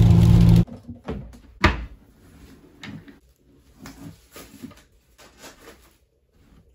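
Steady car-cabin road and engine noise from driving on a wet highway, cut off abruptly after about half a second; then scattered knocks, clatter and rustling of household items being picked up off a floor while tidying, with one sharp knock about a second and a half in.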